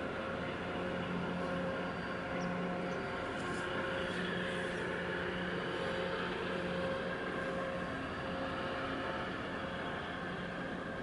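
Steady engine drone from the passing container ship and its tug: a hum of several steady tones over a hiss, fluctuating slightly.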